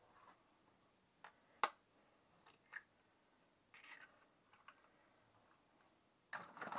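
Eggs being cracked with a knife over a bowl: a few quiet, sharp taps of the blade on eggshell, the loudest about a second and a half in, then soft crackling of shell and a denser cluster of clicks near the end.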